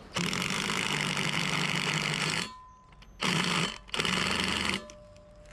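Ryobi cordless drill hammer-drilling a bolt hole into a concrete slab: one long run of about two seconds with the motor note sagging a little under load, then two short bursts.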